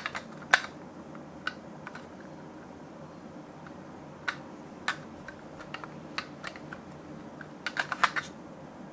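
Scattered light clicks and taps of small toy minicars being handled and set on a slope, irregularly spaced over a faint steady hiss, with a quick cluster of clicks near the end.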